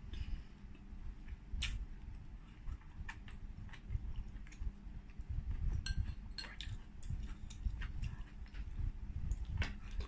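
Close-miked chewing of a mouthful of shabu (soft vegetables and sliced pork) with lips closed, a steady low mouth sound, with about six short sharp clicks scattered through it from the mouth and the metal chopsticks at the bowl.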